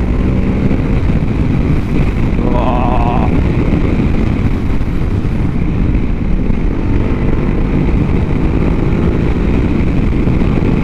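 Ducati Hyperstrada's L-twin engine running under way, its revs rising and falling, with heavy wind noise on the microphone.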